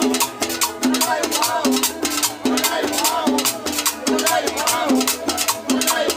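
A live cumbia band playing: a guitar melody over a quick, steady beat of snare drum, cymbal and congas, with an upright bass line underneath.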